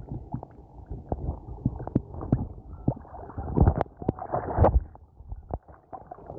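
Shallow seawater sloshing and splashing around the legs of someone wading knee-deep, in irregular dull knocks and swishes that grow louder a little past halfway.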